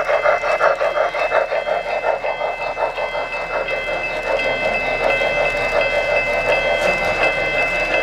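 O-scale three-rail model train of an N&W J-class steam locomotive and passenger coaches running past, with rhythmic chuffing from the locomotive's sound system and wheels rolling on the track. A bell dings steadily, about three times a second, through the second half.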